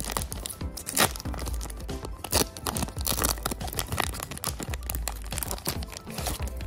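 Foil trading-card booster pack being torn open and crinkled by hand, then the stack of cards slid out of the wrapper, a dense run of irregular crackles and rips, over background music.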